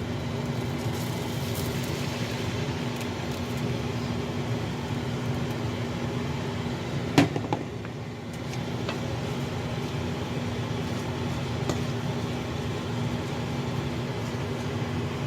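A steady mechanical hum from a small motor, with one sharp knock about seven seconds in.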